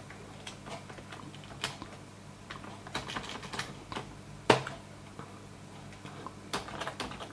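Typing on a computer keyboard: irregular key clicks, with one louder keystroke about four and a half seconds in.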